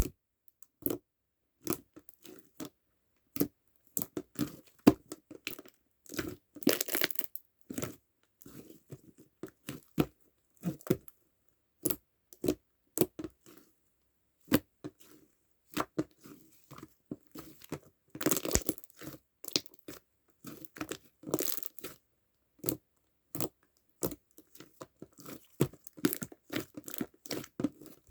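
Strawberry milk slime worked by hand: irregular sticky clicks and pops, some in quick crackling clusters.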